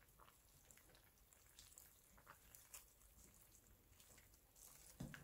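Near silence, with faint scattered wet clicks and squelches of metal tongs lifting meat out of broth-soaked collard greens in a slow cooker, and a soft low bump near the end.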